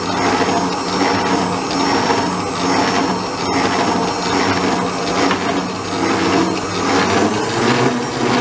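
Moulinex stand mixer running at low speed, its beater whipping an egg-and-sugar cream in a steel bowl as oil is added: a steady motor hum with a regular swish about twice a second.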